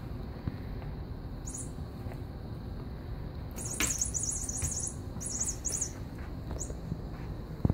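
A rattan cat toy ball jingling in short high bursts as a kitten bats it and sends it rolling across the floor, with a light knock about four seconds in.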